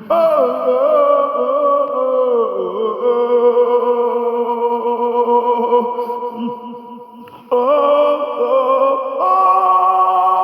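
A voice singing long, drawn-out notes in a chant-like style, with slow glides between pitches. It breaks off briefly about seven seconds in, then comes back in.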